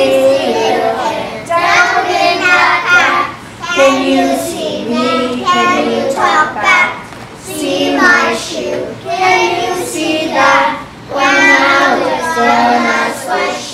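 A child singing a song, in phrases of a few seconds with short breaks between them.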